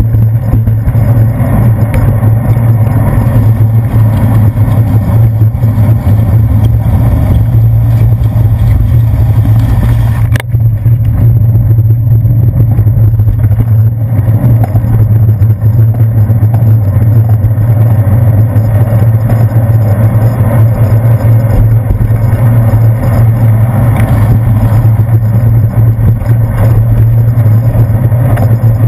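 Steady, loud rumble of wind and road noise from riding a bicycle on wet streets, picked up by a handlebar-mounted GoPro, with a single knock about ten seconds in.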